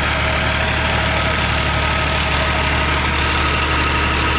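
Al-Ghazi tractor's diesel engine running steadily, driving a tubewell pump through a PTO shaft, with a constant low hum and a few steady whining tones. Water gushes from the pump's outlet pipe and splashes into a concrete tank.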